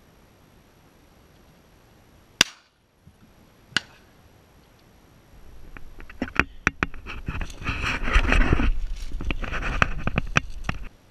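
Two shotgun shots about a second and a half apart, sharp and clipped. Then loud rustling and crackling of dry crop stalks with handling knocks as a downed dove is picked out of the plants.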